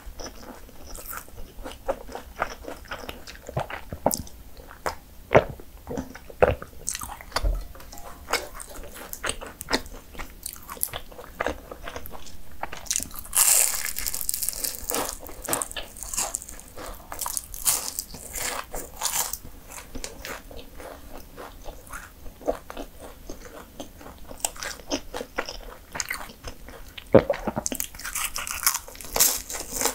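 Bites into flaky puff pastry, crisp layers crunching and crackling, with chewing between bites. There is a dense stretch of crackling about halfway through and again near the end.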